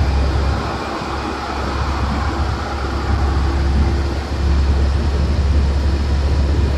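Road noise inside a moving vehicle's cabin: a steady low rumble with an even hiss of tyres and wind.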